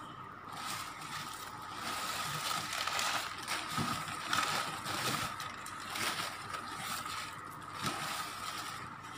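Crumpled paper packing rustling and crinkling as paper-wrapped plants are handled and pulled out of a cardboard box, with a faint steady whine underneath.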